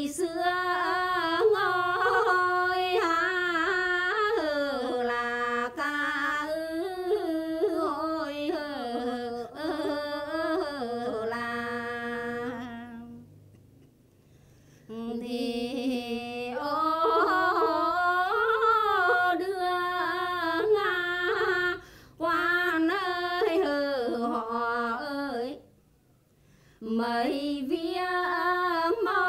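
A woman singing a Quan họ folk song unaccompanied, one voice with wavering, ornamented pitch. She sings in long phrases broken by brief pauses.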